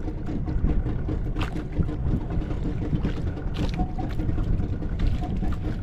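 Small fishing boat's motor running steadily: a low rumble with a faint pulsing hum, and a few short clicks scattered through it.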